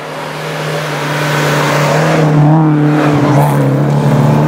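Historic rally car's engine running at steady high revs as the car approaches on a snowy stage. It grows louder until about halfway, then holds loud.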